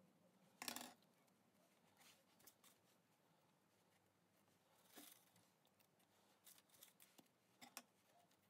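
Near silence with a few faint, brief papery crackles: wet newspaper strips being pressed on and a paintbrush dabbing glue over a papier-mâché head.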